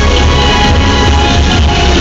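Electronic dance music with a heavy, steady bass beat, played loud over the speakers as the soundtrack of a water fountain show.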